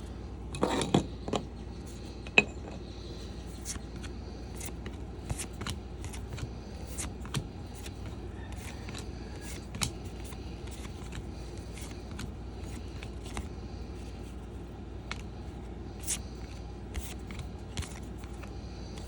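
Trading cards being flipped through by hand: many short, soft ticks and scrapes as cards slide off the stack, with a louder cluster about a second in, over a steady low hum.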